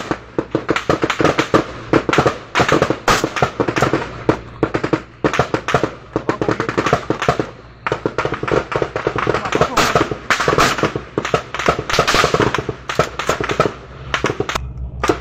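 Heavy gunfire from several assault rifles at once: rapid, overlapping shots in long strings, with brief lulls about eight seconds in and near the end.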